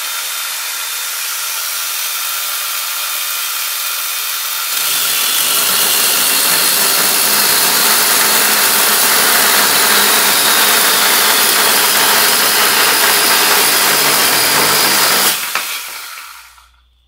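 Husqvarna Aspire P5-P4A battery pruning chainsaw running: first a steady whine with no load, then, about five seconds in, louder and deeper as the chain cuts through a branch for about ten seconds. Near the end the trigger is released and the chain winds down.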